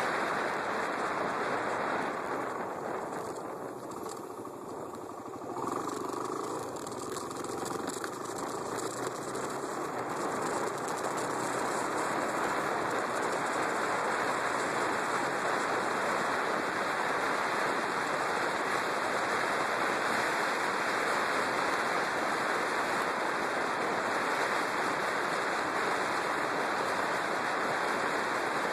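Wind rushing over the microphone of a camera mounted on a moving Yamaha WR250X motorcycle. About two seconds in the rush eases as the bike slows, letting the single-cylinder engine come through faintly; from about six seconds on the rush builds again as the bike picks up speed.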